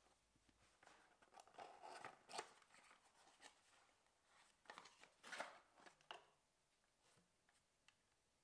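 Faint rustling and scraping of a small cardboard box being opened and a charger with its cable being lifted out, with a few light knocks; loudest about two and a half and five and a half seconds in.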